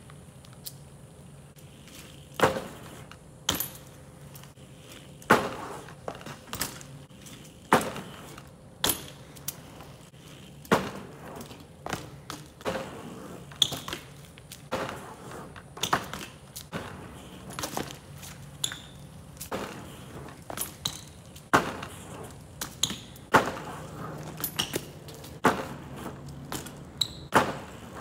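BMX bike hitting hard ground and a bench: a series of sharp knocks and clatters, one every second or two, from its tyres and pegs striking as the rider tries an ice-pick-to-barspin.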